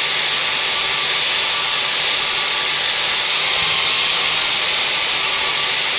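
Angle grinder running, its disc grinding the steel edge of a rotary lawnmower blade to take out a nick. The steady whine and grinding hold throughout.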